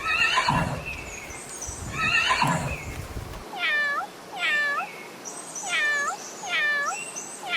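Three harsh farm-animal calls about a second apart, then, after an abrupt cut, a cat meowing repeatedly: short high-pitched meows, several in quick pairs.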